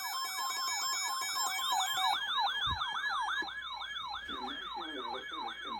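Electronic siren-style alert tone, a rapid yelp sweeping up and down a few times a second, with steady high beeps alongside for the first two seconds. A brief low thud about two and a half seconds in.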